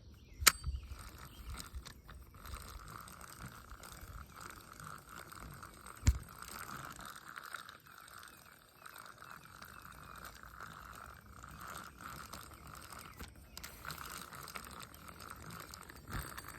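Zebco push-button spincast reel cranked slowly to retrieve a sinking lure, a faint steady whir of the reel gears starting about two seconds in. Two sharp knocks, the louder about six seconds in.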